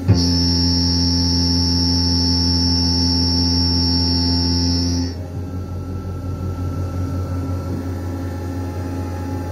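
Denford Novamill CNC mill's end mill cutting steel: a loud, steady machining sound with a high-pitched whine that starts abruptly and cuts off about five seconds in, after which the machine runs on more quietly and unevenly.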